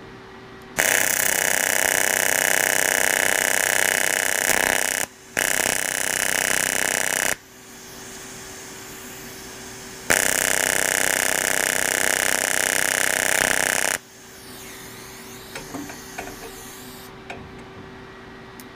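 TIG welding arc on aluminum buzzing loudly while filler rod is fed in to build up a hole in the bar. The arc is struck about a second in, breaks briefly, stops at about seven seconds, then runs again for about four seconds from ten seconds; a steady hum from the welder continues between the bursts.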